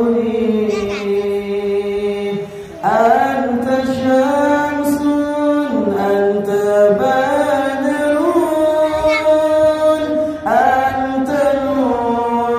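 A man singing sholawat, an Islamic devotional praise song, solo and unaccompanied into a microphone: long held notes bent with melismatic ornaments (cengkok). He takes a short breath about two and a half seconds in, and new phrases begin there and again near the end.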